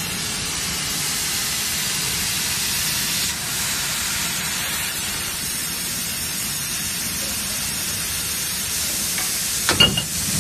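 Plasma cutting torch of a CNC pipe plasma cutter hissing steadily as its arc cuts steel pipe, with a brief louder burst near the end.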